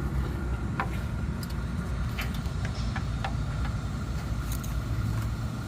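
Workshop disassembly noise: a few scattered metallic clicks and clinks of hand tools on engine parts over a steady low rumble.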